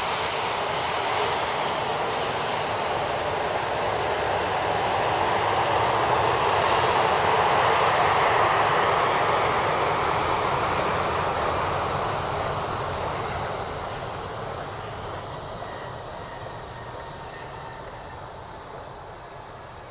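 Jet airliner passing: a steady rush of engine noise that swells to its loudest about eight seconds in, then slowly fades away.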